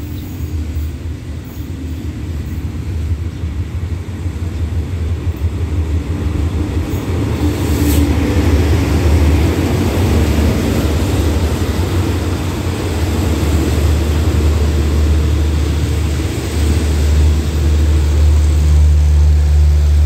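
A Hitachi diesel-electric locomotive hauling a passenger train arrives. Its engine noise and the sound of the train on the rails grow louder over the first several seconds as it approaches. The coaches then roll past close by, with a sharp click about eight seconds in.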